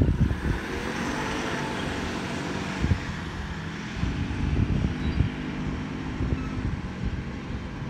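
SES utility vehicle driving off, its engine and tyres humming as it pulls away down the road and recedes. Wind buffets the microphone throughout.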